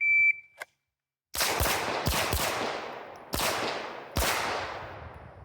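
Shot timer's start beep, a short steady high tone, then about a second and a half later a handgun fires six shots: two quick pairs, then two single shots, the last about four seconds after the beep, each shot ringing out briefly.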